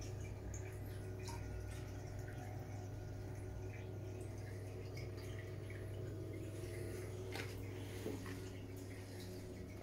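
Steady low hum of a reef aquarium's pumps, with faint trickling and dripping water from its circulation. There are a couple of slightly sharper ticks near the end.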